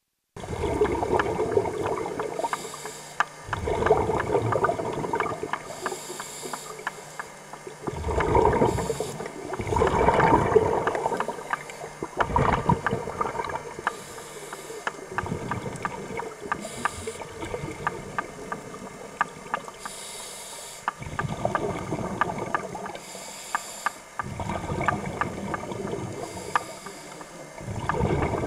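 Scuba diver breathing through a regulator underwater: a short hiss on each inhale and a burst of bubbling on each exhale, repeating every few seconds.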